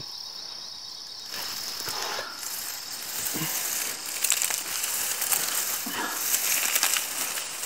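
Tall dry grass rustling and crackling as someone pushes through the stalks, starting about a second in, over a steady high cricket trill.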